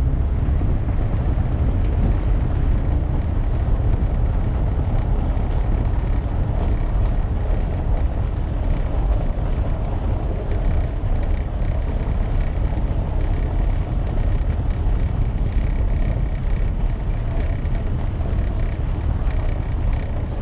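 Car driving over a cobblestone street: a steady, dense low rumble of the tyres on the stones, with road noise.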